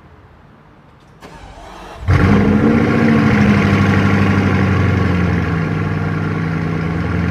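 Bugatti Chiron's quad-turbocharged W16 engine starting: under a second of starter cranking, then the engine catches with a loud flare about two seconds in. It settles to a steady high idle that drops slightly in pitch.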